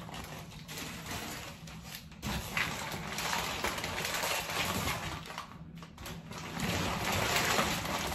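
Plastic zip-top bag crinkling as it is handled and opened, with small clicks of pills.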